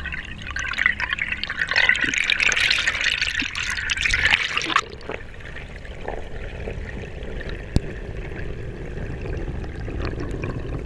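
Water splashing and bubbling, loudest for about the first five seconds, then dropping suddenly to a quieter, steady rush.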